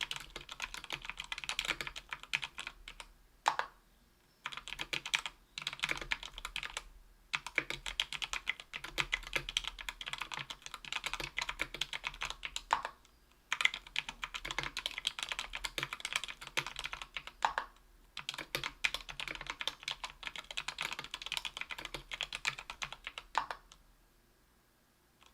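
Fast typing on a Tofu 60% aluminium mechanical keyboard with Krytox 205g0-lubed JWK Rara tactile 62g switches and lubed stabilizers: a dense run of key clacks in bursts with short pauses, a few louder single strokes just before the pauses. The typing stops about a second before the end.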